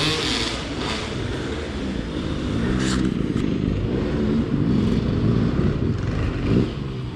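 Dirt bike engine running, its pitch rising and falling several times as the throttle is blipped.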